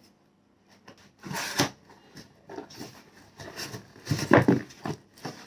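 Packaging being rustled and handled as a parcel of glass bottles is opened, in a string of short bursts with the loudest handling about four seconds in.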